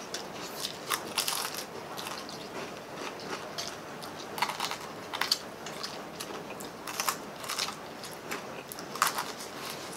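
Crunching and chewing of crispy pata (deep-fried pork knuckle), bitten close to the microphone. Irregular crisp crunches come in clusters about a second in, around four to five seconds, around seven seconds, and once more near the end.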